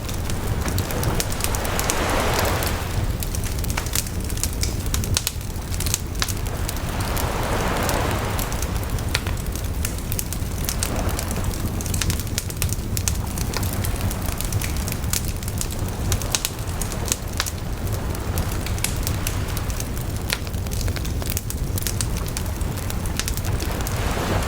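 Wood campfire crackling and popping in quick, irregular clicks, with sea waves washing in slow swells over a steady low rumble.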